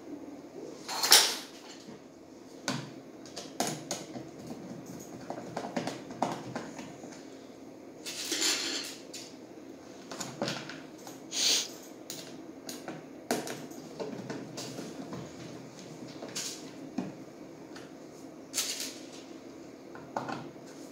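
Hard plastic parts of a child's ride-on toy motorbike being handled and screwed together: an irregular run of knocks, clicks and rattles of plastic, with a few louder knocks.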